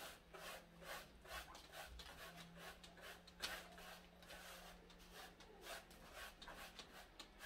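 Faint, repeated brushing strokes of a plastic broom sweeping dust across a concrete floor.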